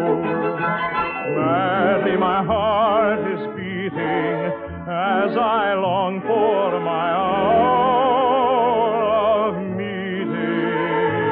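An operatic singer sings a Neapolitan love song in a warm, sustained style with strong vibrato, backed by an orchestra. The phrases swell and rise and fall, with no speech between them.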